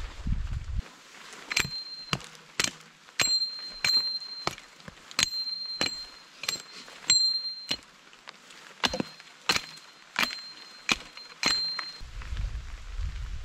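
A metal blade chopping wood: about eighteen sharp strikes, mostly half a second apart, in two runs with a short pause between. Many strikes carry a brief metallic ring.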